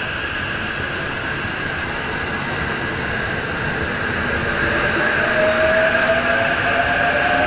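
JR E353 series electric train with Mitsubishi IGBT-VVVF inverter drive running, over a steady high-pitched hum. From about halfway through, the traction-motor whine climbs slowly in pitch and grows a little louder as the train gathers speed.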